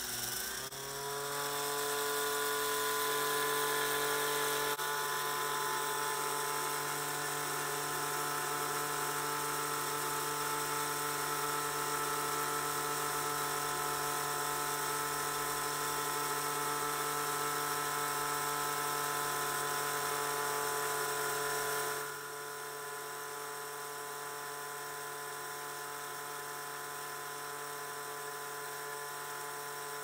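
Small electric motors of a homemade magnetic heater rig, its DC water pump among them, running with a high steady whine; about half a second in, a motor spins up, rising in pitch before settling. The sound drops in level at about 22 seconds and carries on steadily.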